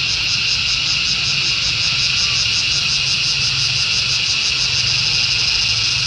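Loud, steady insect chorus: a high buzzing drone that pulses rapidly and evenly, about eight times a second.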